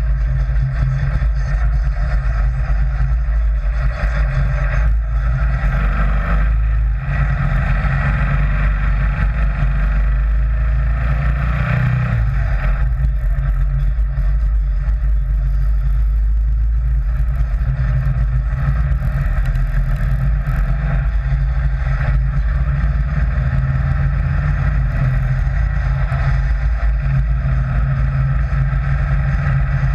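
Sand rail dune buggy's engine running steadily as the buggy drives along, heard close up from a camera mounted on its frame.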